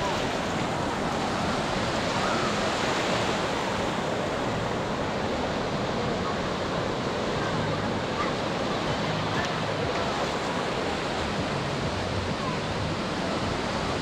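Steady rush of ocean surf breaking and washing up the beach, with faint chatter of a crowd of beachgoers mixed in.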